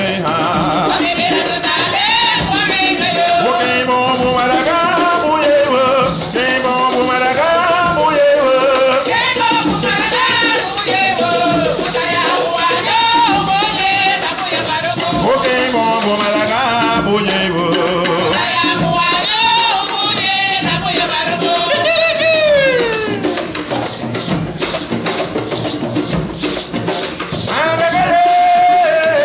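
Live Garifuna folk music: a woman's voice singing a wavering melody over shaken rattles and hand drums. The rattles shake densely through the middle, then sharp, regular drum and rattle beats take over in the second half, with the singing growing stronger near the end.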